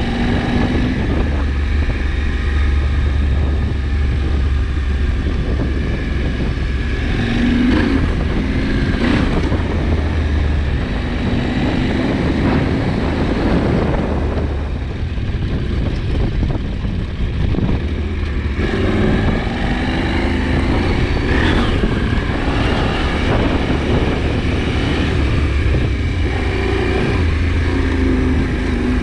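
KTM 790 Adventure's parallel-twin engine running under way, its revs rising and easing off several times.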